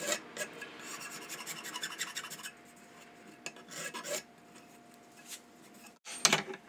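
Quick rasping, rubbing strokes from hand-smoothing the edges of a 3D-printed casting pattern held in a bench vise. The strokes come thick in the first couple of seconds and return briefly around four seconds. A louder short run follows a break near the end.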